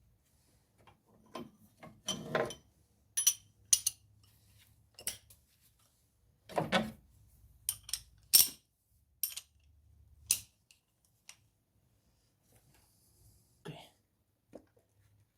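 Metal socket and extension clinking and knocking in a spark plug well while a spark plug is being loosened: a string of separate sharp metallic clicks, several with a short ring, with a few duller knocks.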